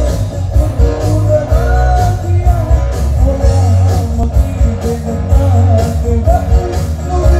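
Live band playing a Sinhala pop song: a male singer sings the melody over heavy bass and a steady drum beat.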